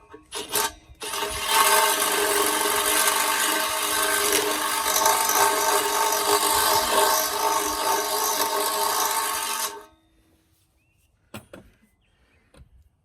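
Electric drill running at a steady speed for about nine seconds, opening up a tight, burred bolt hole in the vise stand's steel, then stopping abruptly. A few short clicks come before it starts.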